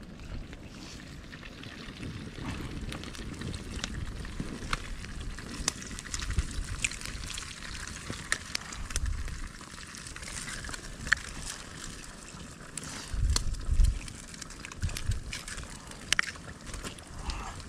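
Wood campfire crackling under a frying pan, with scattered sharp pops and snaps throughout. A few low rumbles come and go, the loudest about three-quarters of the way through.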